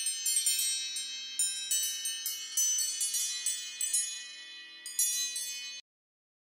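iPhone ringing for an incoming group FaceTime call, a run of bright chiming tones. It cuts off suddenly near the end.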